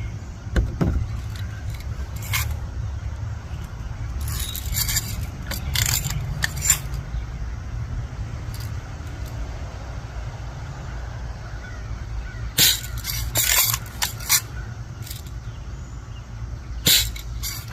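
Sharp clicks and snaps from a BB gun being cocked and fired at a die-cast toy truck. They come in scattered groups, most around the middle and in a cluster near the end, over a steady low rumble.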